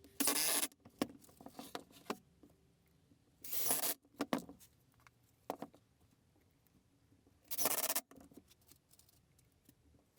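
Three short scraping swipes a few seconds apart, with light knocks and clicks between them, as wooden workpieces are handled on the bench.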